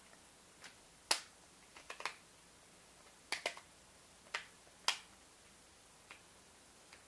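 Sharp, irregular clicks and taps of an iPhone's back cover and small parts being handled during reassembly, about eight in all, the loudest about a second in and near five seconds.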